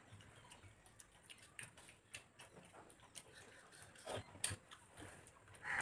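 Faint eating sounds: wet chewing and lip smacks, with fingers mixing soft khichuri on a plate, heard as a string of soft clicks. A few louder ones come about four seconds in and near the end.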